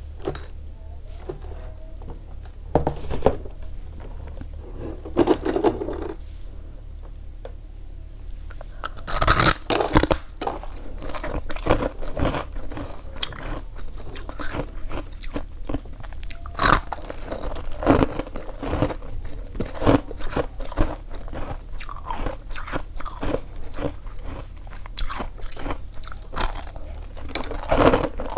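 Close-up biting and chewing of crunchy freezer frost: a few scattered crunches at first, then from about nine seconds in a dense, irregular run of crunching bites and chews.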